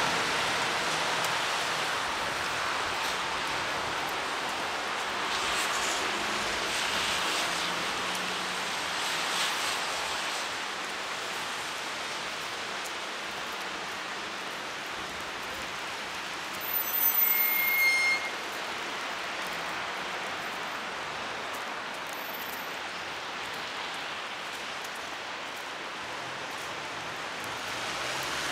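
Heavy rain falling, a steady even hiss. About two-thirds of the way through comes a brief high-pitched tone lasting about a second.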